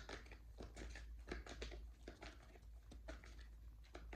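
Light, irregular clicks and taps of tarot cards being handled and laid down.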